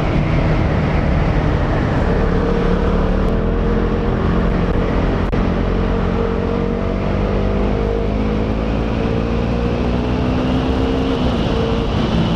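KTM Duke 200's single-cylinder engine through its stock exhaust while riding, its pitch slowly climbing as the bike pulls, then dropping about eleven seconds in, over a steady rush of wind and road noise.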